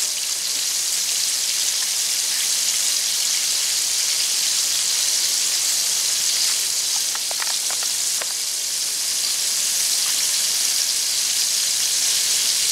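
Breaded flounder fillets deep-frying in hot oil in a cast iron skillet: a steady, bright sizzle of bubbling oil.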